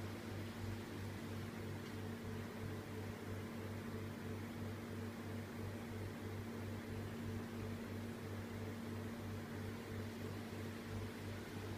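Pacific PR-90 kitchen exhaust hood's two mixed-flow fans running steadily. A low electric motor hum throbs at an even rate a few times a second, under a rush of air.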